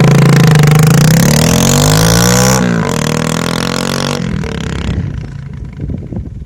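Bike engine running through a homemade, fully hollowed silencer with its inner baffle tube removed. It is revved with the pitch rising for about two and a half seconds, then the throttle is let off sharply. It runs at a lower pitch, then drops back to a rough low idle about five seconds in.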